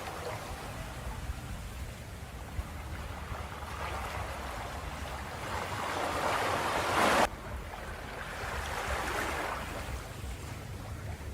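Ocean waves washing in on a shore, in slow swells of surf. One larger wave builds and cuts off abruptly about seven seconds in, then another swell follows.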